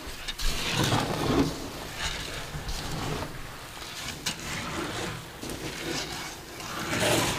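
Barley koji and coarse salt being stirred together by gloved hands and a scoop, a dry grainy rustling and crunching that swells and fades, with one sharp click about four seconds in. This is the salting of the koji for miso.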